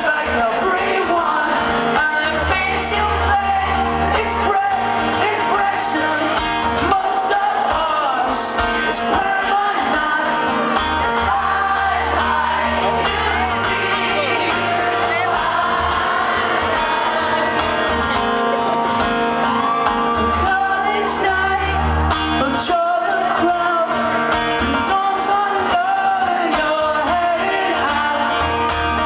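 Live concert music in a large hall: a male singer with guitar accompaniment, with shouts and whoops from the audience.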